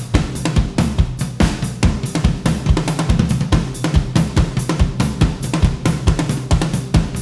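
DW acoustic drum kit with Evans heads played without a break: a fast, dense stream of stick strokes across snare and toms, with bass drum and cymbal hits underneath.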